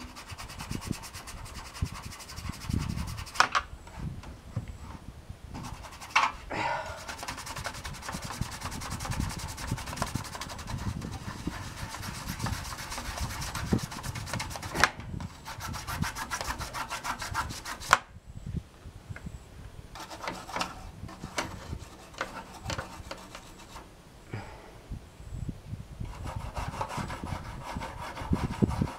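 Fast back-and-forth scrubbing on a computer case, cleaning off grime. Several short pauses are broken by a few sharp knocks.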